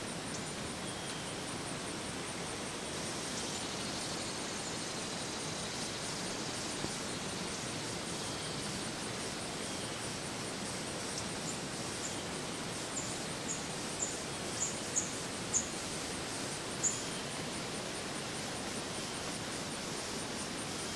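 Steady outdoor background hiss under a faint, constant high-pitched whine. Partway through comes a run of about eight short, high chirps a little under a second apart.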